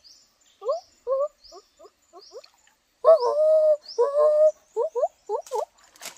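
A high voice making many short rising whoops, then longer held calls about three seconds in, with faint high chirping behind.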